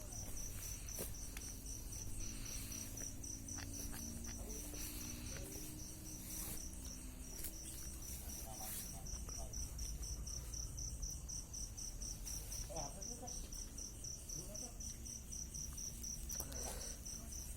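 Crickets chirping at night in one steady, evenly repeating high pulse, over a faint low rumble.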